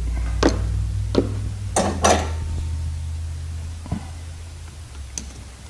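Small metallic clicks and taps from a screwdriver and carburetor parts being handled on a workbench, about six in all and sharpest near two seconds in, over a steady low hum.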